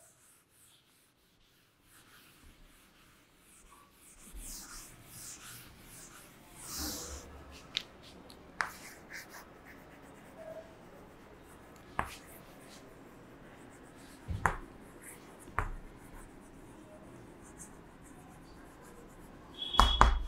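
A board duster rubs across a chalkboard, then chalk writes on the board: faint scratching strokes with sharp taps as the chalk strikes, and a louder scrape near the end.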